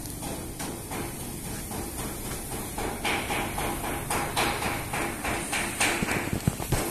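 Irregular knocks and clatter, getting busier and louder from about three seconds in.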